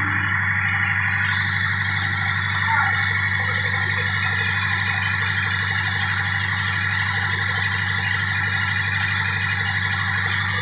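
Cummins KTA38-M marine diesel engine running at a steady speed: a constant deep drone with a steady mechanical hiss above it, heard in the engine room itself.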